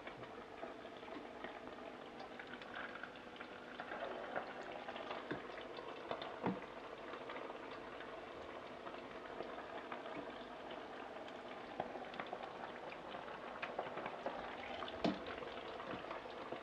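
Spoonfuls of smoked-trout cake batter deep-frying in a saucepan of hot oil: steady bubbling and crackling. A few sharp clinks of a metal spoon against the metal mixing bowl, the clearest about six seconds in and near the end.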